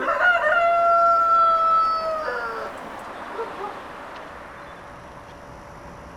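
One long animal call held for about two and a half seconds, falling slightly in pitch and breaking into a short flourish at its end.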